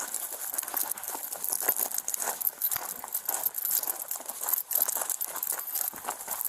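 Rustling and scuffing of clothing and gear rubbing against a body-worn camera's microphone, a dense run of irregular crackles and small knocks with steady high hiss.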